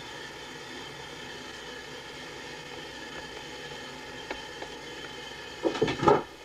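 A steady mechanical hum drones on evenly throughout. About a second before the end it is broken by a short burst of loud noise.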